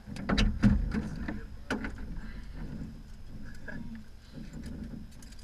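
Several sharp clicks and knocks in the first two seconds, then softer rustling and handling noise from people moving about in a small aircraft's cabin.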